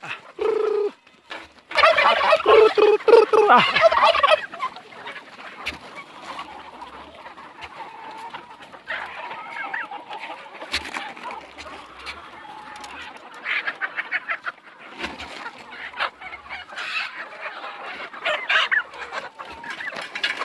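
A flock of free-range local chickens clucking and calling. A loud stretch of raucous calls comes about two seconds in and lasts about two seconds, followed by quieter clucking broken by occasional louder calls.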